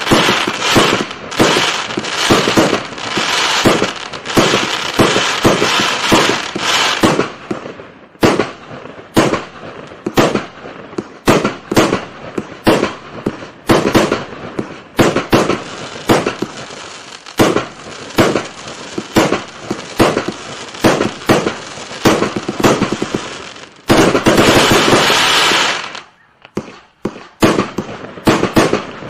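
A 300-shot, 25 mm fireworks cake firing: a fast string of shots and bursts with crackle for about the first seven seconds, then single bangs about one or two a second over a steady crackling. Near the end comes a dense crackling spell, a brief lull, and fast shots again.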